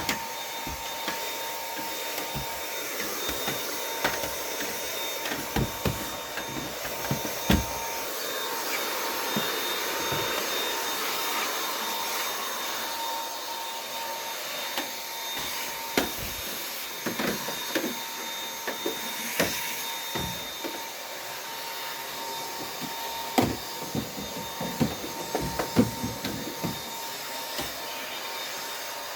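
Dyson vacuum cleaner running steadily with a constant high whine, broken by scattered sharp clicks and knocks.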